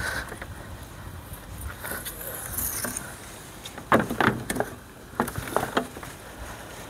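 Long black strips of old windscreen seal and bonding being pulled off the windscreen frame and bundled in a gloved hand. Rubbery rustling and flapping, with a cluster of sharp clicks and snaps about four seconds in and another about a second later.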